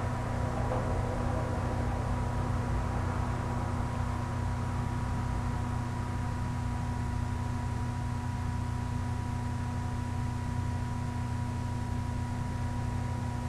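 Steady background hum with a constant hiss. A fixed high tone and a low drone hold unchanged throughout, with no speech.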